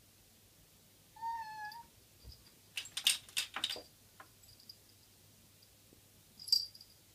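A cat meows once, a short call of about half a second with a slight waver in pitch. It is followed by a quick clatter of clicks and knocks lasting about a second, and one sharp click near the end.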